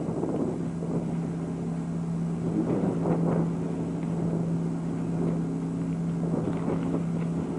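Steady low machinery hum, like an engine running, with a few faint scattered knocks over it.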